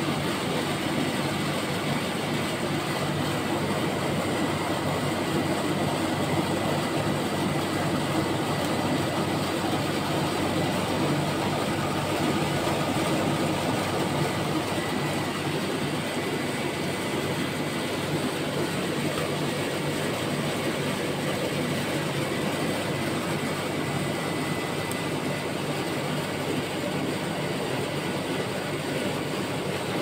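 Ice cream roll machine's R32 refrigeration unit running: the compressor and condenser fan give a steady mechanical running noise with a faint thin whine, as the steel pan freezes over.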